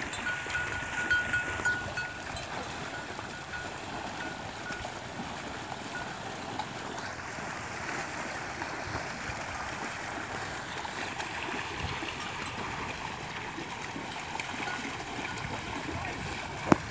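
Water buffalo wading through shallow muddy water, with steady splashing and sloshing. A thin high tone sounds for the first two seconds, and a sharp click comes near the end.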